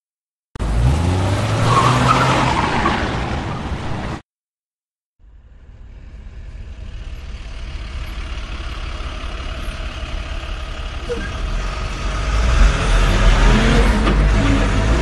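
A vehicle engine revving hard with rising pitch for a few seconds, then cut off abruptly. After a second of silence, the sound of a vehicle driving fades in and grows steadily louder, with a heavy low rumble.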